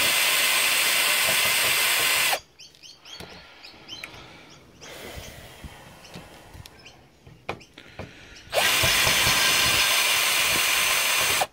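A power driver with a hex bit whirs steadily as it backs out the spring-loaded heatsink screws on a Power Mac G5 logic board. It runs for about two seconds and stops, then there are a few seconds of small clicks and handling rattles. It runs again for the last three seconds and cuts off suddenly.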